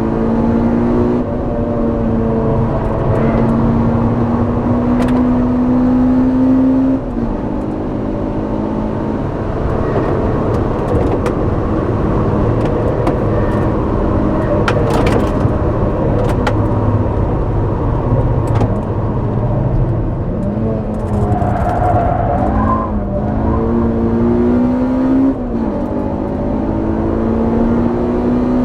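Honda Civic Type R EP3's 2.0-litre four-cylinder engine on track, heard through its exhaust, pulling up through the revs under load. The pitch climbs steadily and drops sharply at each gear change or lift, about 7 seconds in and again near the end. Around 20 seconds in the revs dip and waver with short blips before it pulls hard again.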